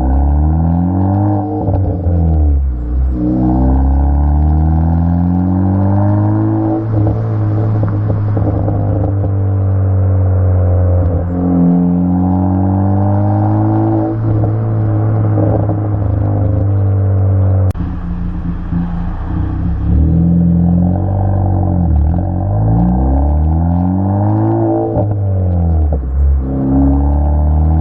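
Ford Focus ST's 2.0-litre EcoBoost turbo four-cylinder, through a 3-inch COBB turboback exhaust with a catted downpipe, revving up and falling back several times. Crackles and pops come from the exhaust as the revs drop, the lift-off crackle of its tune.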